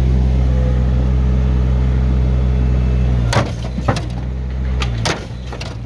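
Engine of a small earthmoving machine running at a steady pitch while dozing rubble, with several sharp knocks and scrapes in the second half.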